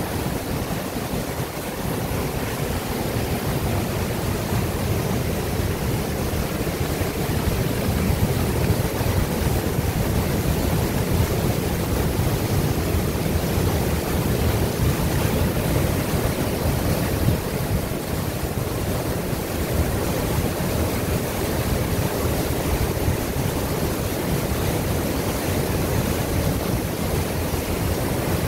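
Whitewater from a waterfall rushing and churning through a narrow rock chute: a steady, dense rush of water.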